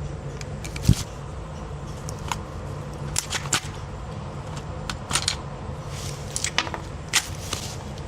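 Light clicks and rattles, typical of a gun and its gear being handled, over a steady low hum. One sharper, louder knock comes about a second in.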